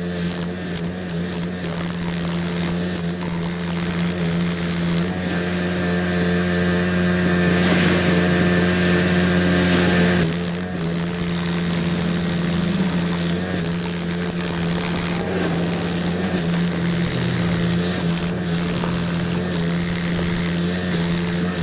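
Engine of construction machinery running steadily at a constant pitch, with scattered clicks and knocks. From about five seconds in until about ten seconds in it grows louder, with an added hiss, then settles back.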